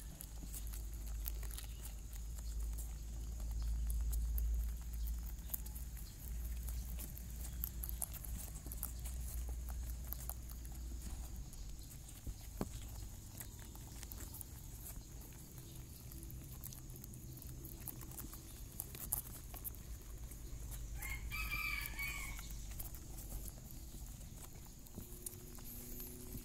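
Soft rustling and scattered faint clicks from a doe rabbit and her newborn kits squirming and suckling on a mat and being handled, over a low rumble. About 21 seconds in, a short pitched animal call sounds for about a second and a half.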